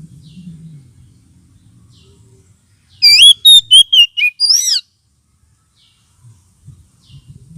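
Oriental magpie-robin (kacer) singing: a quick phrase of about six loud, looping whistled notes about three seconds in, lasting under two seconds, with faint short chirps before and after.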